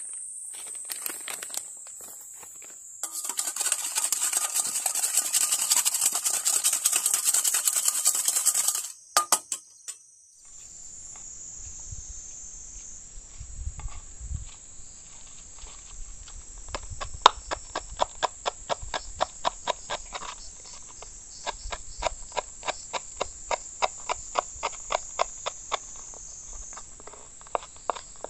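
A kitchen knife chopping fresh basil leaves on a wooden board makes quick, regular taps, a few a second, through the second half. Behind it runs a steady high insect drone, with a louder, dense buzzing for about five seconds in the first third.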